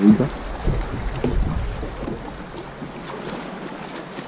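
Wind rumbling on the microphone aboard a small boat, with a single loud thump just after the start.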